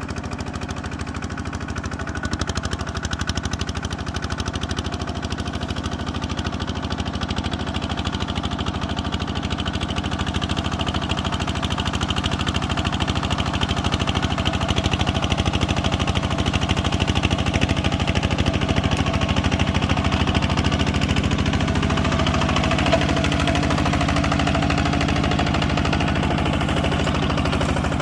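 Engine of a farm machine running steadily, getting a little louder from about halfway through.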